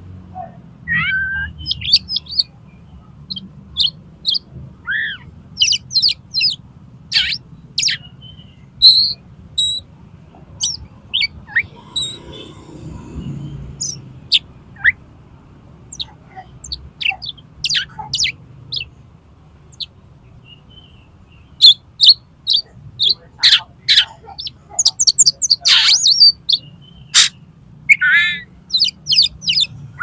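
Oriental magpie-robin in full song: a long, varied string of sharp whistled notes, chirps and quick falling and rising slurs. There is a short lull past the middle, then a dense run of notes near the end. It is the loud territorial challenge song, full of mimicked phrases.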